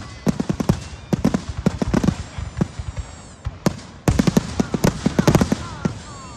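Fireworks going off: a rapid string of bangs and crackles that eases off about three seconds in, then a dense volley of bangs.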